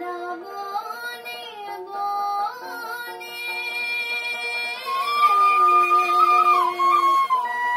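Assamese Kamrupiya folk song: a woman's voice singing long, ornamented notes that slide between pitches over a steady drone, growing louder about five seconds in.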